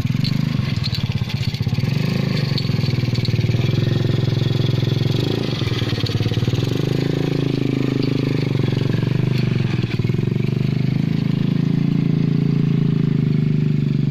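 Small motorcycle engine running steadily in a home-built car, its pitch shifting a little in the middle.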